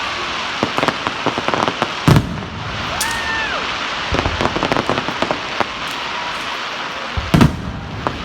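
Fireworks going off: a dense run of crackling and popping, with two loud booms, one about two seconds in and one near the end.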